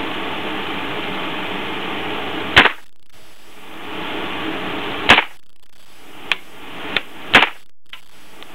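Gunshots on a shooting range: three loud shots about two and a half seconds apart, the first about two and a half seconds in. Two fainter cracks fall between the second and third. A steady hiss before the first shot drops away after it.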